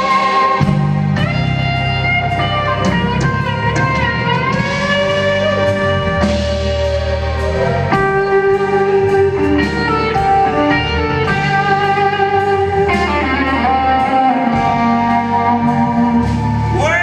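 Live electric guitar solo on a sunburst Les Paul-style guitar in a slow blues, long sustained notes bent up and down in pitch, over the band's bass and keyboard backing. A note slides upward near the end.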